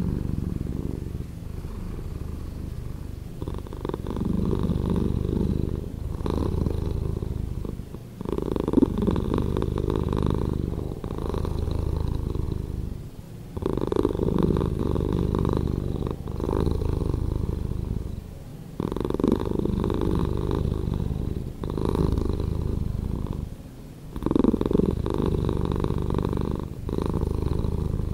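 Domestic cat purring, slowed down so the purr sounds deeper and drawn out. It swells and fades with each breath, about every two to three seconds.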